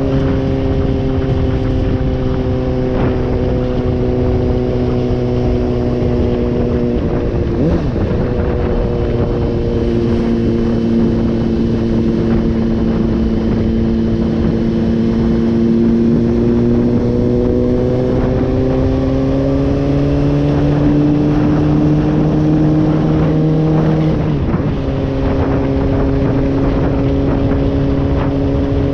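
Honda CBR600RR's inline-four engine running at cruising revs under wind rush. The pitch drops suddenly twice, about a quarter of the way in and near the end, as gears are changed. In between the revs climb slowly as the bike speeds up.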